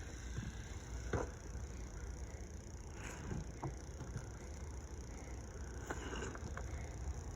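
Faint rustling and a few soft, scattered knocks of hands sifting through potting soil for potatoes, over a steady low background rumble.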